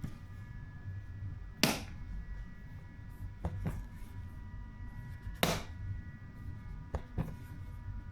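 Magnetic lid of a rigid folding gift box snapping shut onto its hidden high-strength magnets twice, about four seconds apart, each a sharp click. Fainter clicks and taps come in between as the box is handled.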